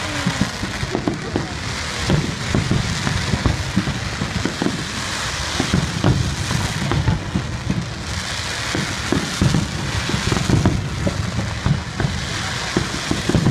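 Aerial fireworks bursting: a continuous, dense run of bangs and crackles, many of them overlapping.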